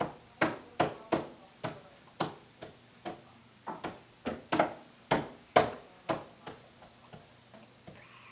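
A toddler slapping her open hands on the plastic tray of a booster seat: quick, irregular smacks, two or three a second, thinning out near the end.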